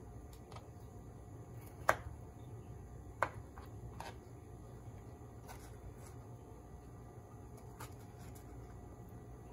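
Knife slicing a tomato into wedges on a cutting board: scattered light taps and clicks of the blade on the board, two sharper ones about two and three seconds in, over a low steady hum.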